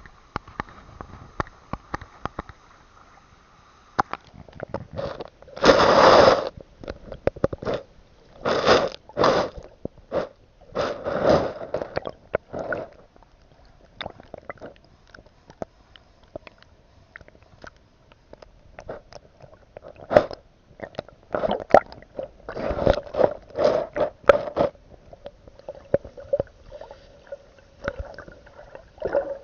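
Water at a waterfall splashing and gurgling in uneven bursts, with quieter gaps between them rather than a steady roar.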